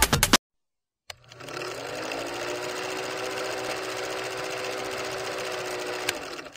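Vintage film projector sound effect: a click, then the projector starts up, rising briefly in pitch, and runs with a steady mechanical rattle and whir for about five seconds before a click and a quick fade.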